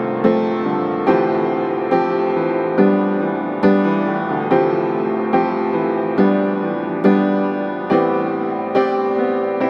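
Background music: a gentle piano piece, with a note or chord struck about once a second.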